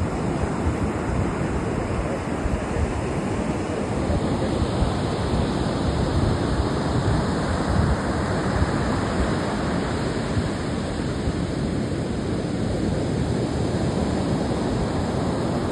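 Surf from a rough sea breaking and washing up the shore as a steady rush of noise, with wind rumbling on the microphone.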